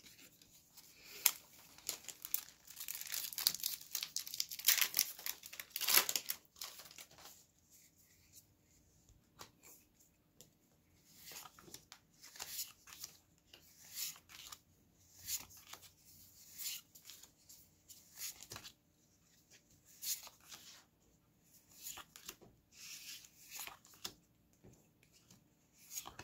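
Plastic-foil booster pack wrapper torn open and crinkled for the first several seconds. Then trading cards are slid and flicked one at a time in the hand, with short rustles and snaps about once a second.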